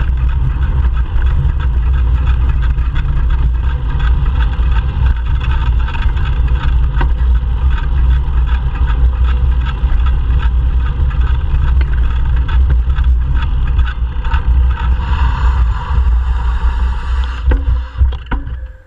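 Wind buffeting the microphone of a camera on a moving bicycle, a steady low rumble with tyre noise on concrete and frequent small rattles from the bike. It eases and falls away near the end as the bike slows.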